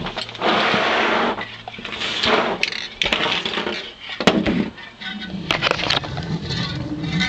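Handling noise of an aerosol spray can and its packaging: irregular rustling and knocking in bursts, the longest a second or so near the start, with a few sharp clicks.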